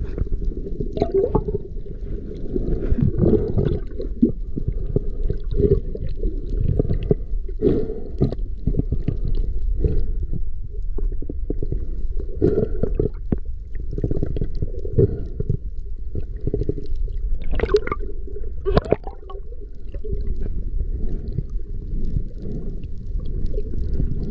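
Water sound picked up by a camera held underwater: a steady, muffled low rumble with gurgling and irregular knocks and splashes, two of them louder near the end.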